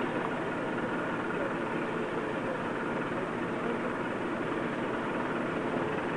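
A fire engine's motor idling steadily, the truck carrying the ladder.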